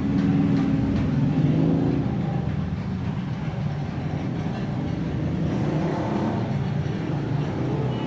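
An engine running with a steady low hum, a little louder in the first two seconds, like motor traffic going by.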